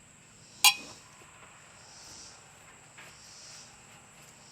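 Insects, crickets by their sound, chirping faintly in the background in slow swells, with one sharp metallic click a little under a second in.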